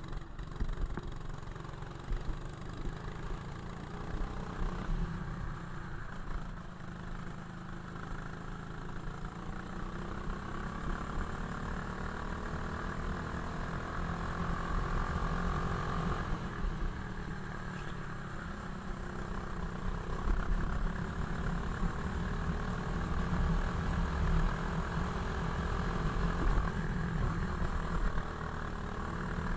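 Go-kart engine heard from onboard, running continuously as the kart laps. Its pitch climbs steadily on the long pulls, drops sharply about halfway through, then climbs again.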